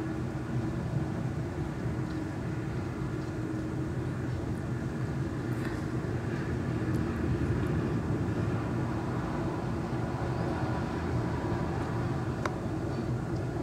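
Airbus A320 jet engines on final approach: a steady rumble with a faint hum over it.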